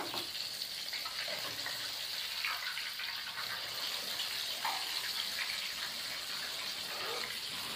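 Crumb-coated chicken leg deep-frying in hot oil in a karahi: a steady sizzle and bubbling, about one to two minutes into frying.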